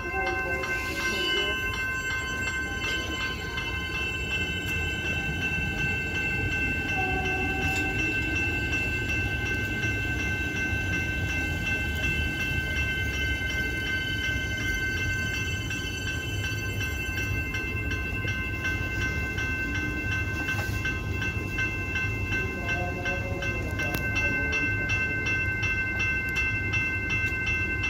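Siemens Nexas electric suburban train running along the platform as it pulls out. A low rumble of the carriages rolling past sits under a steady high-pitched whine of several held tones.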